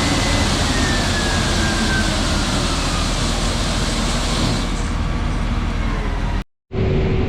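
Combine harvester running steadily while harvesting corn, with a faint whine that falls in pitch over the first few seconds. The sound cuts out for a moment near the end and comes back with a steady hum.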